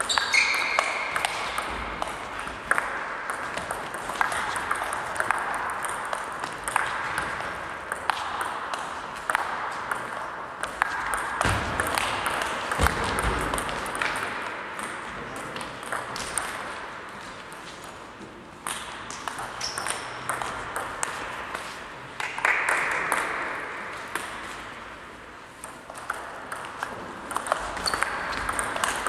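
Many short, sharp clicks and knocks at irregular intervals over a steady background murmur, with two brief ringing pings, one just after the start and one about 22 seconds in.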